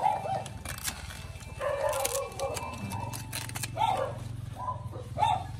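Scissors cutting through stiff pandan leaves, a few short snips with leaf rustle. A dog barks several times in the background over a steady low hum.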